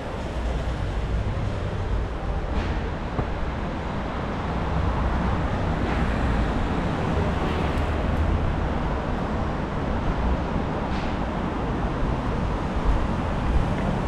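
Steady road traffic on a busy city street: cars passing with a continuous low rumble.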